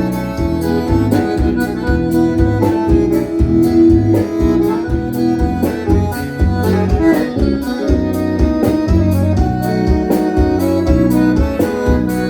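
Live chamamé band playing an instrumental passage, led by accordion over guitar and a steady, even bass beat.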